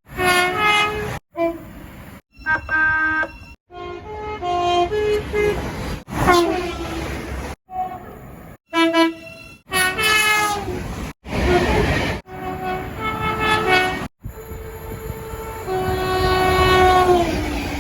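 Locomotive air horns sounding multi-note chords in a quick series of separate blasts, each cut off abruptly, over the rumble of moving trains. Several chords slide down in pitch as the train passes, most clearly a long held blast near the end.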